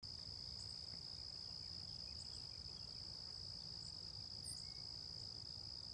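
Faint, steady chorus of insects such as crickets, one unbroken high-pitched trill, with a few brief faint bird chirps and a low rumble underneath.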